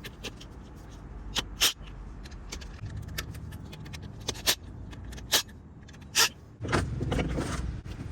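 Hand tools and metal engine parts clinking during a car engine teardown: several sharp separate clanks, then a scraping, rattling stretch about a second long near the end.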